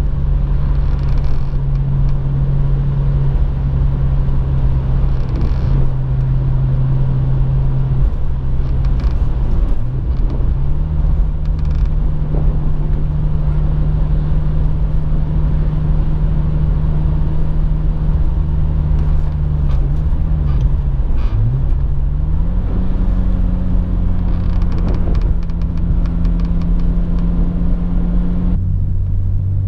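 BMW M5 E34 Touring's S38B38 3.8-litre straight-six running at steady cruising revs, heard from inside the cabin. Its pitch steps up about a third of the way in, dips and climbs again about two thirds in, and drops sharply near the end.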